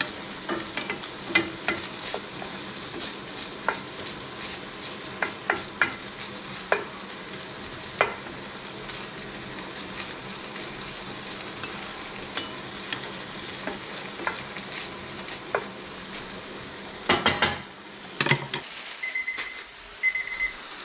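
Diced pancetta sizzling in a cast-iron skillet while a wooden spatula stirs it, with irregular clicks and scrapes of the spatula on the pan. A few loud knocks come near the end, then a timer starts beeping in short repeated bursts of high beeps, marking the end of the two-minute broccoli blanch.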